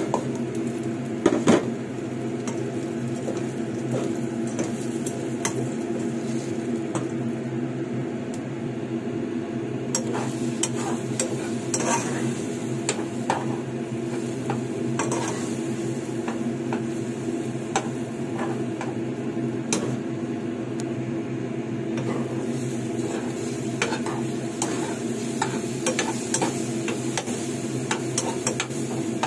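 Eggs and shallots sizzling in oil in a nonstick pan as a utensil stirs and scrapes them, with repeated clicks against the pan and two louder knocks about a second and a half in. A steady low hum runs underneath.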